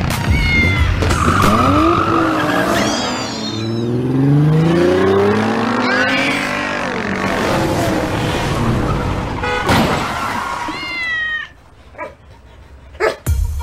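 Revving engine sound effects whose pitch climbs and falls over several seconds, with short high squeals between the revs. The engine sound cuts off suddenly near the end, followed by a few sharp clicks.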